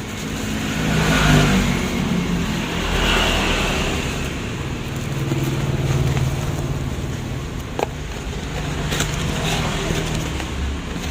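A motor vehicle's engine running with a low rumble that swells and eases, with a few small clicks in the second half.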